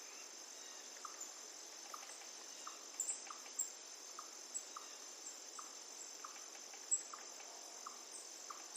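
Rainforest insects keeping up a steady high-pitched trilling drone, with short chirps repeating every half second or so through it.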